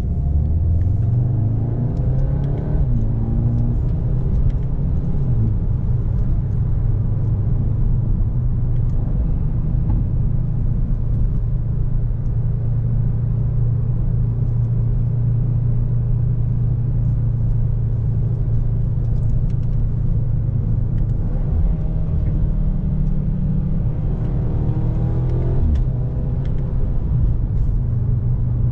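2021 Audi S3 sedan's 2.0-litre turbocharged four-cylinder (TFSI) heard from inside the well-insulated cabin while driving: a steady low engine drone over tyre and road noise. The engine note rises as the car accelerates near the start and again about 21 seconds in.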